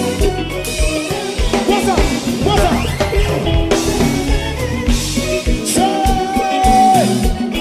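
Haitian konpa band playing live: drum kit, electric guitars and keyboards under singing, with gliding vocal lines and one long held note in the second half.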